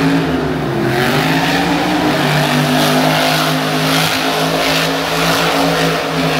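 A monster truck's engine running loudly as the truck drives and turns. Its pitch wavers at first, then holds steady.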